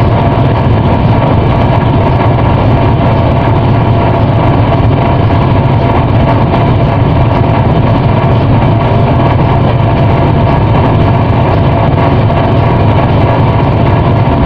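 Ship's engine running with a steady low drone.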